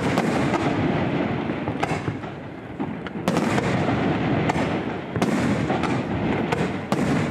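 Aerial fireworks going off in quick succession: a dense, continuous rumble and crackle of launches and shell bursts, with sharp bangs every second or so.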